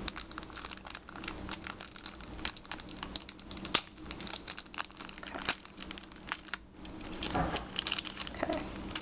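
Packaging crinkling and rustling in a dense run of small crackles, with a few sharper ones, as a toy camera is gently pulled out of its wrapping.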